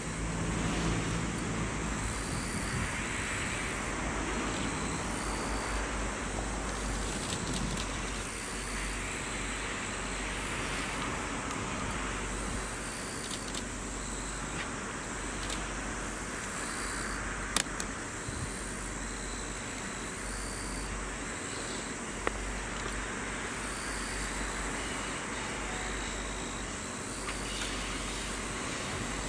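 EF66 electric freight locomotive approaching slowly with a train of unpowered passenger cars in tow: a steady rumble of the locomotive and its wheels on the rails. Two sharp clicks come about five seconds apart, past the middle.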